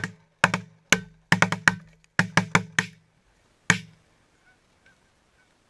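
A volley of shotgun blasts from several hunters firing on geese: about ten sharp shots in under four seconds, coming in quick clusters, the last one a second after the rest.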